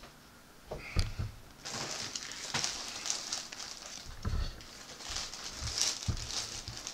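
Clear plastic bag wrapping a plush toy crinkling and crackling as it is handled, with a soft thump on the table about a second in.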